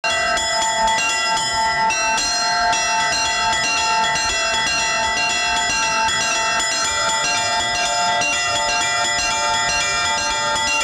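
Church bells ringing: smaller bells struck in quick succession, several strikes a second, over the lasting hum of deeper bells.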